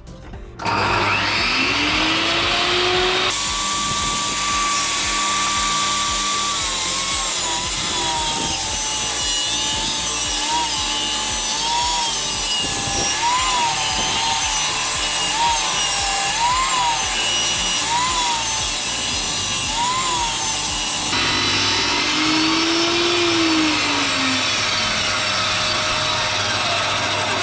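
Table saw starting up and ripping a long wedge-shaped timber plank. The blade's whine rises as it spins up, then dips and recovers again and again as it takes the load of the cut, then runs more freely. Near the end the pitch falls as the saw is switched off and winds down.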